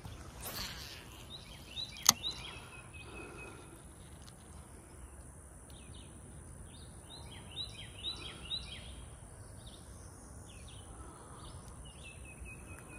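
Outdoor ambience with small birds chirping in quick groups of short, falling notes, several times. Near the start there is a brief swish, and about two seconds in a single sharp click, the loudest sound.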